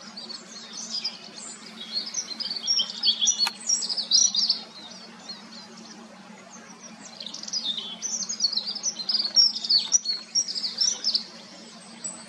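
Dunnock singing: two long, fast, high-pitched warbling phrases separated by a pause of a couple of seconds, over a faint steady low hum.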